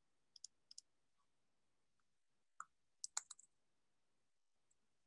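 Sparse clicks at a computer on an otherwise near-silent call line: two quick pairs of clicks in the first second, a single click after about two and a half seconds, then a fast run of about five clicks a little after three seconds.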